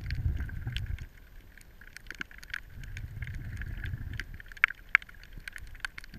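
Underwater sound of moving water: a low rushing surge that swells and fades in waves, over a steady fine crackle with scattered sharp clicks, two of them loudest a little past the middle.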